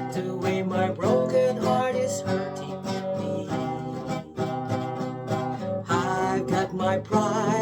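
Music: a song accompanied by strummed acoustic guitar, playing steadily with a melody line over the chords.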